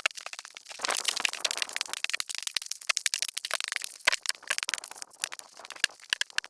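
Snow crunching and crackling in a dense, irregular run of sharp crunches, thickest from about a second in and thinning out after about four seconds.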